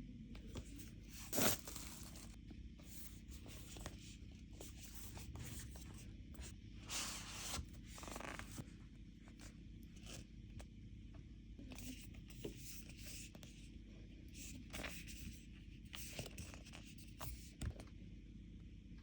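Album packaging being unwrapped and handled: tearing and rustling of the wrapping with scattered light clicks and taps, and a longer tearing stretch about seven seconds in.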